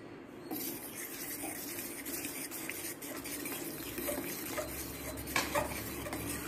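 Fork stirring and scraping through flour in a stainless steel bowl as water is slowly poured in, mixing a batter without lumps. A few light clinks of the fork on the bowl come near the end.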